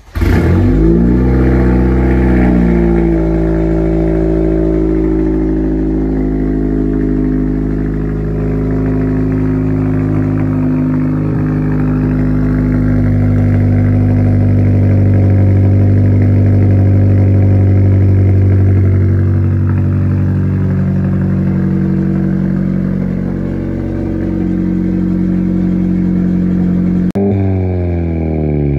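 Cold start of a 10th-generation Honda Civic Si's 1.5-litre turbo four-cylinder, running through a catless downpipe, front pipe and race catback exhaust. The engine starts up suddenly and settles into a loud, steady high idle. Near the end the engine speed falls away.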